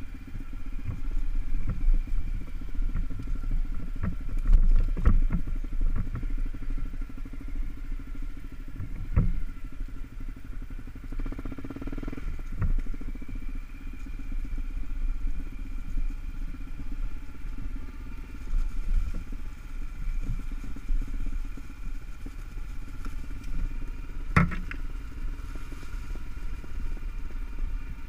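Honda CRF250L's single-cylinder four-stroke engine running steadily at low trail speed. A few sharp knocks come through as the bike goes over rough ground, the loudest near the end.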